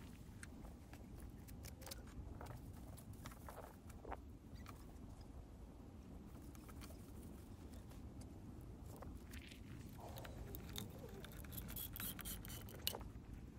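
Faint low steady rumble with scattered small clicks and scrapes of hand work at a timber door sill. Sharper clicks come near the end as a caulking gun is squeezed to lay a bead of silicone.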